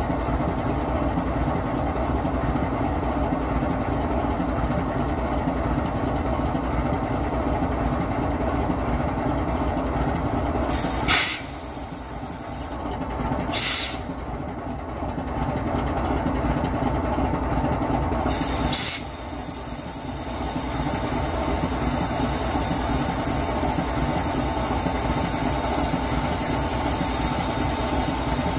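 GE WDG4G diesel-electric locomotive's GEVO-12 engine idling steadily, with a steady hum. Three short, sharp air hisses break in about a third, halfway and two-thirds of the way through; after the first and last, the running noise drops and builds back over a few seconds.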